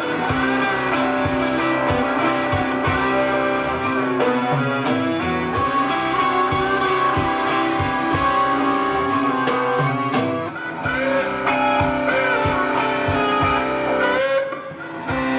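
Blues-rock music led by electric guitar, over a steady low beat, starting abruptly, with brief drops in level about ten seconds in and again near the end.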